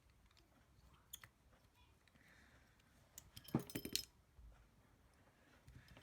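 Small metal tool or part clinking on a hard work surface: a quick cluster of sharp clicks with a brief metallic ring about three and a half seconds in, after a faint click near the start.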